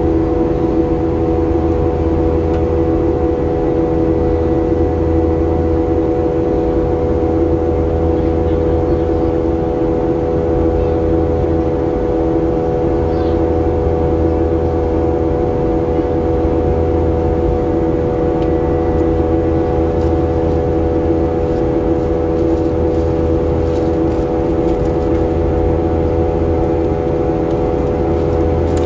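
Boeing 737-800 cabin noise in the climb, heard from a window seat beside the wing: the CFM56-7B turbofans' steady rush with an even hum of several fixed tones.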